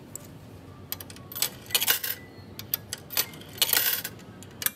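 Metal sake tokens clinking and dropping into a sake-tasting vending machine's coin slot, with sharp clicks and two short runs of metallic jingling.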